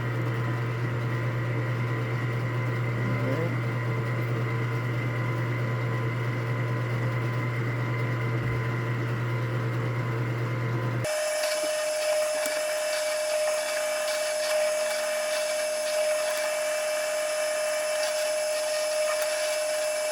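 Small electric drill running steadily while boring rivet holes through leather. About eleven seconds in, the sound switches abruptly to a higher, thinner whine that lasts until near the end.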